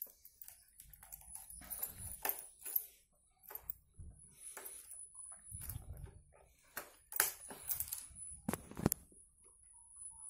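Scattered light clicks, taps and knocks of hands working on a motorcycle's parts around the fuel tank and handlebar, with a few sharper knocks in the second half. No engine is running.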